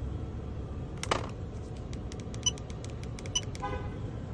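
A series of light clicks, then a short beep from the 2020 Ram truck about three and a half seconds in: the sign that the newly programmed key works even though the programmer reported the learning as failed.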